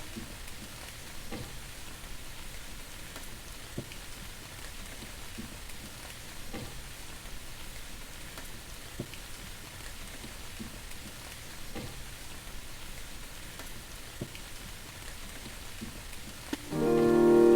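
Steady soft rain-like noise with faint light ticks about every two and a half seconds. Music with sustained notes comes in near the end.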